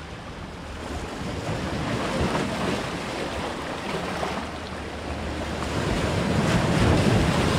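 Sea waves washing and breaking against the rocks of the shore, swelling twice, the louder surge near the end.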